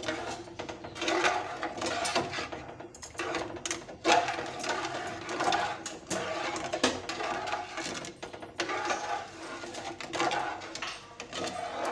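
Metal spatula stirring and scraping around an aluminium pot of thin, watery semolina halwa, in repeated strokes.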